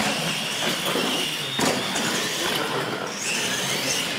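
R/C monster trucks racing down a straight lane, their electric drive motors and gears whining, the whine rising in pitch near the start and again near the end. A sharp knock about one and a half seconds in, with a lighter one before it.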